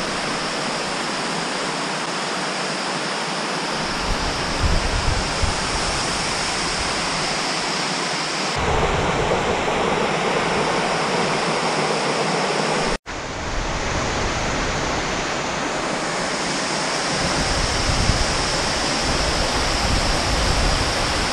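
Fancher Falls, a waterfall about 70 feet tall, pouring into its pool: a steady, loud rush of falling water, broken by a brief gap about two-thirds of the way through.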